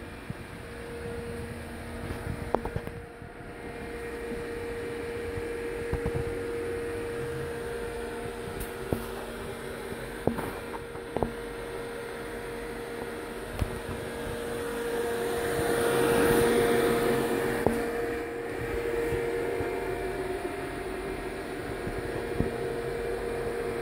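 Hurco TM6 CNC turning center running under power: a steady machine and fan hum with a constant mid-pitched tone. A louder hiss swells for a few seconds a little past the middle, and a few light ticks and knocks come through.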